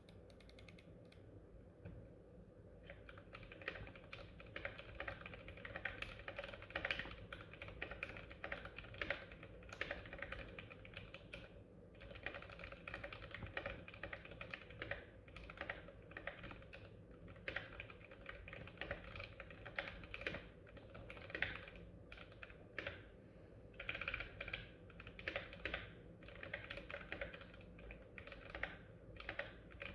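Typing on a GMMK Pro mechanical keyboard with Gateron Black Ink V2 linear switches: keys clacking in quick, irregular runs, starting with a few single keystrokes and settling into steady typing about three seconds in, with a brief pause near the middle.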